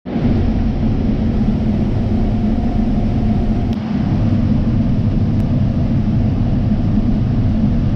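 Combine harvester running steadily while harvesting corn, a continuous low machine rumble heard from inside the cab.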